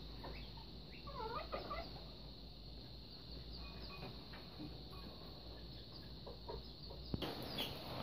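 Faint clucking of chickens with a few scattered bird chirps, over a steady high-pitched drone.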